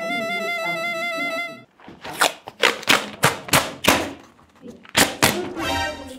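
Paper tape being ripped off its roll in a rapid series of short, loud tears, the last one drawn out into a squealing screech. It is preceded by a brief warbling musical sound effect.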